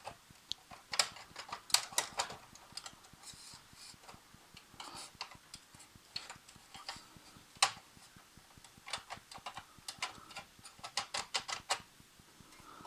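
Irregular sharp clicks and taps of plastic and sheet-metal parts being handled as an HP M104A laser printer is taken apart. A few come about a second in, and a quick run of them comes in the second half.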